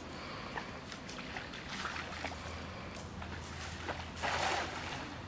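Shallow pond water splashing and sloshing as people wade and feel for fish by hand, with a louder splash about four seconds in.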